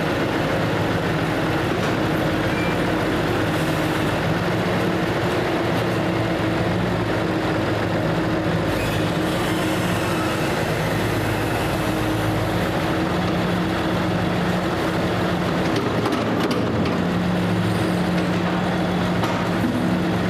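Tractor engine running at a steady speed, its pitch holding constant throughout.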